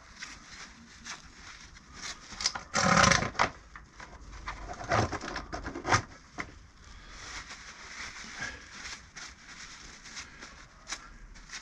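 Hand work on motorcycle brake pads: irregular scraping and clicking of small metal parts, with a short loud rush about three seconds in and a run of sharp clicks and scrapes a couple of seconds later.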